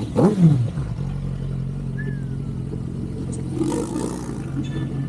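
A vehicle engine note that falls sharply in pitch within the first second, then settles into a steady idle.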